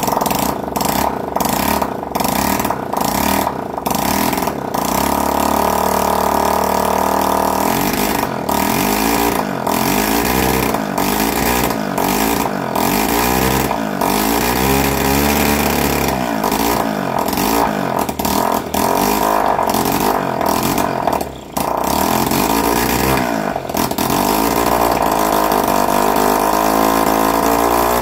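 Honda CB125 RS motorcycle's freshly rebuilt engine running on choke, its revs wavering up and down rather than holding a steady idle. The engine will only run with the choke on, and its spark timing has not yet been set.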